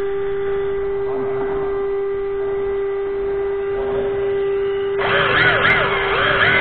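An electric RC drift car gives a steady whining hum while it sits still. About five seconds in it pulls away, and the motor's whine swoops up and down quickly with the throttle.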